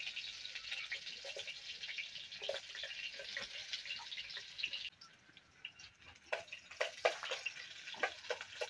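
Chopped onions sizzling in hot oil in an aluminium pot, a steady crackling hiss. It cuts off suddenly about halfway through, and a quieter stretch of scattered clicks follows as a spoon stirs the pot.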